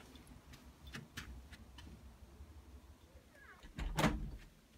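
Light clicks and taps of footsteps and handling on a hard floor, with one louder bump about four seconds in.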